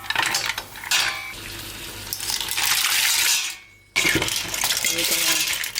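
Mussels and clams cooking in a metal pot, with a hiss of water and shells clinking against the pot. The sound breaks off briefly about three and a half seconds in, then carries on.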